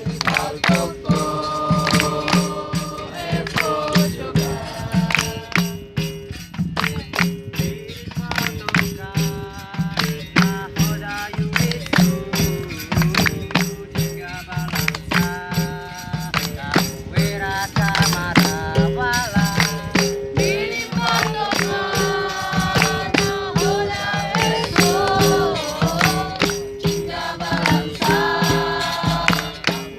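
Capoeira music: singing over a steady rhythm of pandeiro (tambourine) and berimbau, with a low drone and a repeated higher note under the voices.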